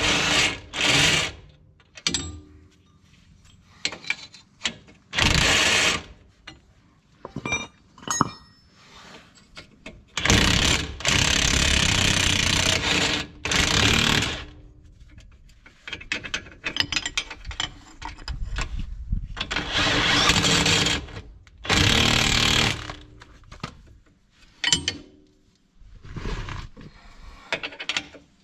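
Hand and power tools at work on a tie rod end: three loud bursts from a power tool, the longest lasting a few seconds, with shorter clicks and metal knocks between them.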